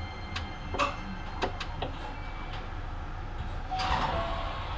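Hankyu 9300 series electric train running, heard from inside the car: a steady rumble with a few sharp clicks in the first two seconds and a rush of noise near the end.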